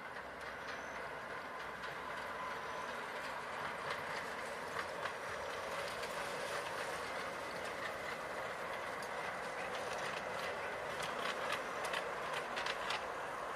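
Garden-scale model freight train led by a diesel locomotive rolling along the track: a steady running rumble with irregular clicks of wheels over rail joints, growing louder over the first couple of seconds, with the clicks coming thicker near the end.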